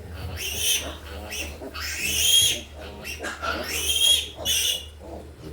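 Piglets squealing in several loud, high-pitched cries, the loudest about two seconds in, as they are handled for teeth clipping and iron injections.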